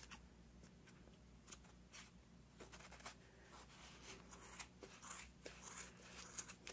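Faint snips of scissors cutting through the wrapped yarn loops of a pompom, a series of short, irregular clicks about two a second.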